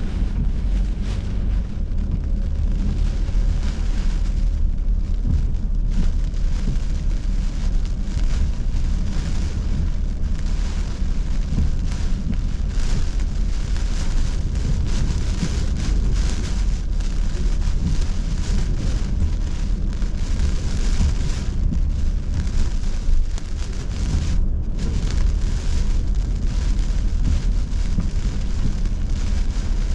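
Rain pelting a moving car, heard inside the cabin as a steady hiss with many small hits, over the car's steady low rumble.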